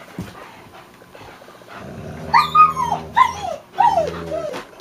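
Dogs growling in a game of tug of war over a sock, a low steady growl starting about two seconds in, with three or four high whining yelps that slide down in pitch over it.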